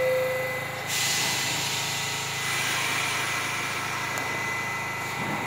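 R68 subway train standing at the platform with its doors open, its low hum and a steady high whine running throughout. The second, lower note of the door chime ends in the first second. About a second in, a sudden loud hiss of released air starts and then settles to a softer hiss.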